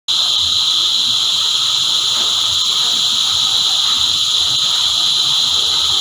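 Chorus of cicadas: a loud, steady, unbroken high-pitched buzz.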